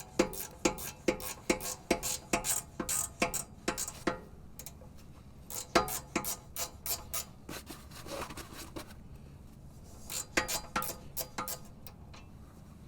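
A 14 mm ratcheting combination wrench clicking as it backs out a loosened brake caliper bracket bolt. Three runs of quick clicks, the first and longest lasting about four seconds, then shorter runs about six and eleven seconds in.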